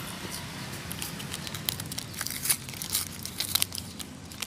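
Paper and clear plastic tape crinkling and crackling as hands unfold a folded paper coin sleeve, with irregular sharp crackles, most of them in the middle.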